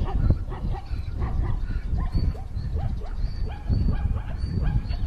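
A zebra held in a leopard's jaws giving a quick run of short, rising yelping calls, over a low rumble.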